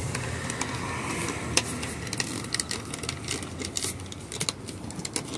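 Scattered light clicks and taps from a hand working the side button and metal stems of a BMW X5 front-seat headrest. A low background rumble fades out within the first second.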